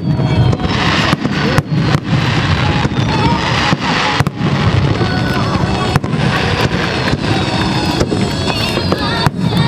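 Fireworks display going off in a dense barrage: many sharp bangs in quick, irregular succession over a continuous heavy rumble.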